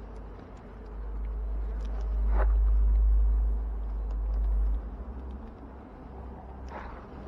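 Honeybees buzzing around an open hive as a steady hum. A heavy low rumble on the microphone covers the first part and stops suddenly about two-thirds of the way through.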